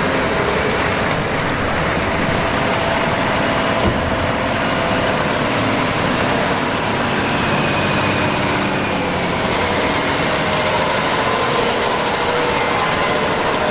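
Combine harvester running steadily while harvesting corn: an even, continuous engine and machinery drone.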